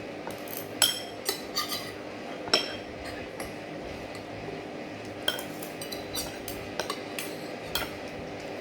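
Metal cutlery clinking against a plate while eating: scattered sharp, ringing taps, the loudest about a second in and again at two and a half seconds, over a steady low hum.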